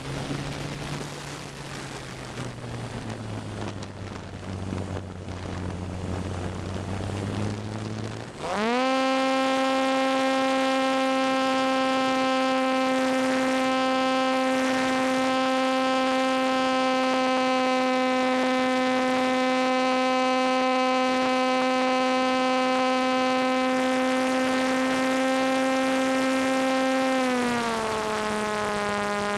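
ParkZone T-28 Trojan RC plane's electric motor and propeller heard from on board. It starts as a low whir with wind rush at low throttle. About eight seconds in the throttle goes up sharply to a loud, steady high-pitched whine, which drops a little in pitch near the end.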